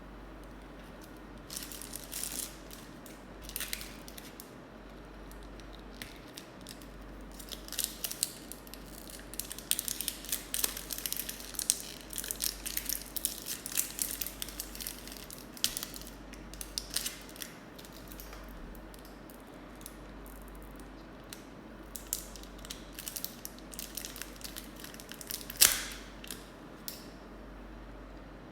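Plastic toy packaging crinkling and rustling in irregular bursts as it is handled and opened, with one sharper, louder snap near the end.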